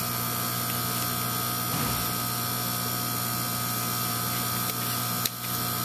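Steady electrical buzz of a Frantz magnetic separator running, an unchanging hum with no rise or fall. A single short click comes about five seconds in.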